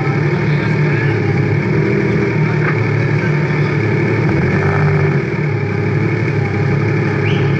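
An engine idling steadily, its low note holding level throughout, with a slight drop in loudness about five seconds in.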